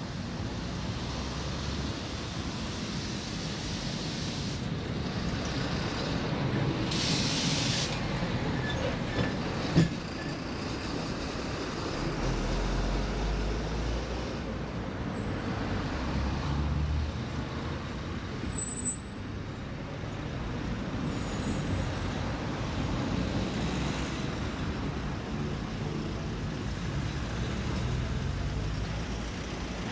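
Medium road traffic: a steady mix of engines and tyre noise from passing vehicles, including buses and trucks. About seven seconds in there is a brief hiss, and there are a few short sharp knocks near the ten- and nineteen-second marks.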